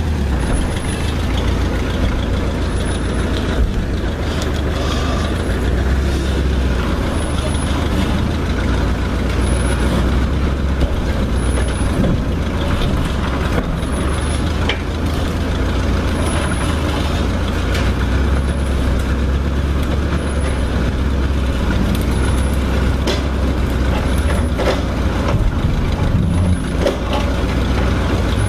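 1959 Chevy Viking tow truck's engine running steadily and powering the wrecker winch as the cable drags a shipping container. A faint high chirp repeats about every second and a half.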